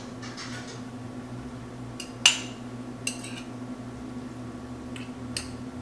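A serving utensil scraping and knocking against a pot while scooping out boiled rice: a few sharp clinks, the loudest about two seconds in. A steady low hum runs underneath.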